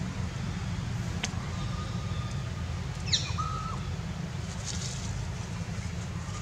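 Outdoor ambience with a steady low wind rumble on the microphone. About halfway through, a short high chirping call falls quickly in pitch.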